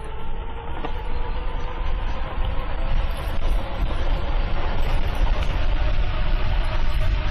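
Electric motor of a 60-volt e-bike whining under full power on a speed run, its pitch rising a little near the start. It is heard under heavy wind rumble on the microphone that grows louder as the bike gathers speed.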